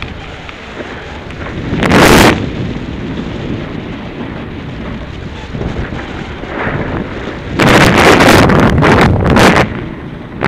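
Wind rushing over a skier's body-worn camera microphone during a downhill run, broken by loud scraping rushes of ski edges skidding on packed snow as the skier turns: one about two seconds in, and a longer run of several close together near the end.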